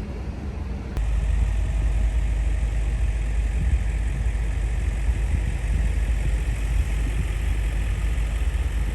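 Vehicle engine running steadily at idle, a low rumble that suddenly steps up louder about a second in and then holds steady.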